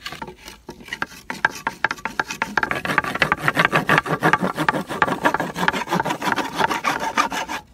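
Wooden board rubbed rapidly back and forth over a tight roll of cotton and wood ash on a concrete slab. It makes a fast, rhythmic rasping that grows louder and quicker, then stops suddenly near the end. This is the fire-roll friction-fire method, working the roll to heat it until it holds an ember.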